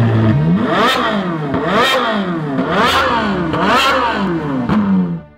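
An engine revved hard five times, about once a second. Each rev rises and falls in pitch with a sharp snap at the top, and the sound cuts off abruptly near the end.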